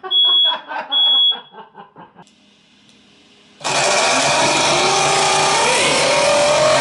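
A smoke alarm beeps in quick succession over a man's laughter, then a short lull. About three and a half seconds in comes a loud, steady rushing whine from a toy jet engine spun by a 50,000 rpm electric motor, its pitch wavering slightly.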